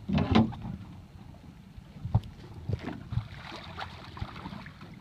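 A large lake trout thrashing and splashing at the surface beside a boat, with a hissing splash about three to four seconds in. A loud clatter of knocks comes right at the start and a few sharp knocks follow later, over a low wind rumble on the microphone.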